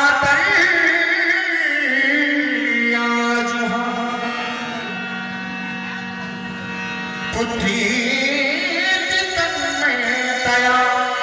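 Devotional song: a man singing over held keyboard chords. His voice drops back around the middle, leaving mostly the steady held notes, and comes in strongly again about seven and a half seconds in.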